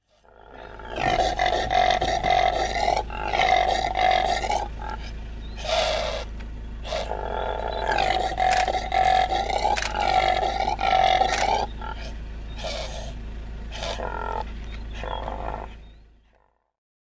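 Impala ram calling: a run of loud, drawn-out calls, most one to two seconds long, with shorter, fainter calls near the end before the sound fades out.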